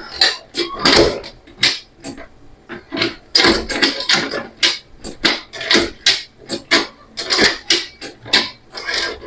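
Honda Legenda motorcycle's transmission and gearshift being worked, giving a fast, irregular run of clunks and rattles. This is the normal sound of the gear ratios, without the extra knock on releasing the shift pedal that the repair set out to cure.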